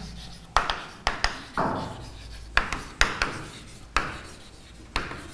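Handwriting strokes: about seven short scratching strokes, each starting sharply and fading, as a heading is written out by hand.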